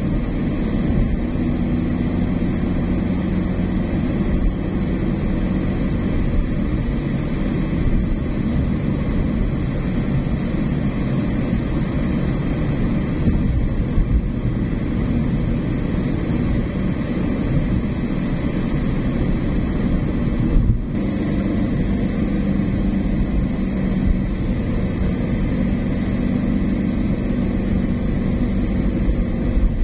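A car on the move: steady engine and road noise, with the engine hum shifting a little in pitch.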